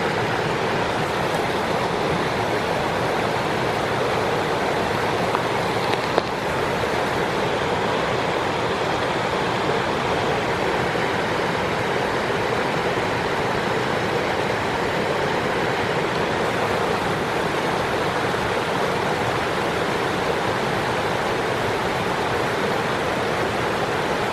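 Steady rush of fast-flowing creek water, with a single brief knock about six seconds in.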